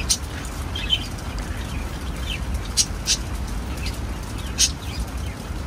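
Birds chirping, with short high-pitched calls every second or so, over the steady patter of rain.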